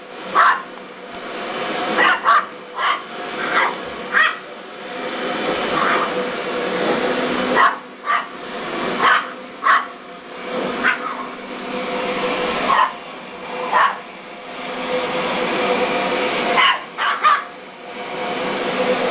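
Small dog barking in short, sharp yaps, about one every second or two, at a running upright vacuum cleaner. The vacuum's motor hum rises and falls in loudness underneath the barks.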